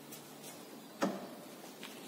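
A single sharp knock about a second in, with a couple of fainter clicks, from suspension parts being handled and fitted during control arm installation.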